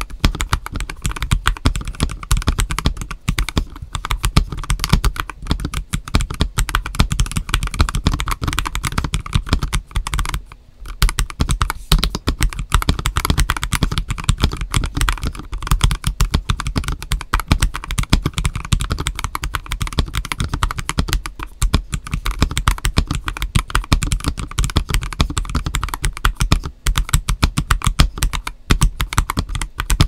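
Typing on a stock GAS67 mechanical keyboard with Akko Starfish switches and Terra PBT dye-sub Cherry-profile keycaps: a fast, continuous run of keystrokes with a short break about ten seconds in.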